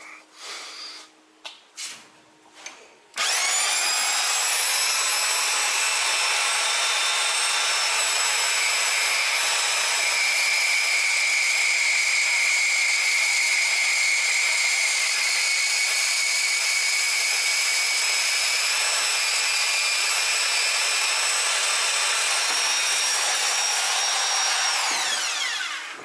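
A few handling knocks, then about three seconds in a bench grinder is switched on and spins up with a rising whine. It runs steadily while the protruding end of a bolt on a small wheel assembly is ground off, then is switched off near the end and winds down with a falling whine.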